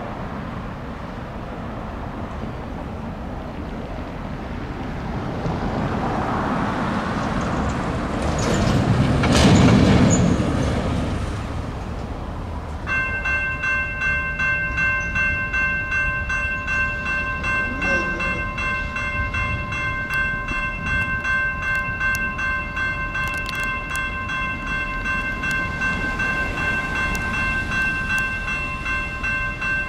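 A railroad crossing's GS Type 2 electronic bell starts ringing about halfway through, a fast repeating ding held on several steady ringing tones, as the crossing activates for an approaching train. Before it, a road vehicle passes close by, loudest about ten seconds in.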